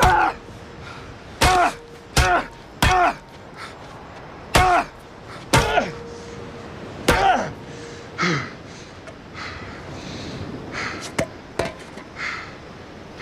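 A golf club being swung into a man on the ground, about seven loud thuds in quick succession over the first seven seconds, each met by a short cry of pain that falls in pitch. Weaker blows and brief groans follow near the end.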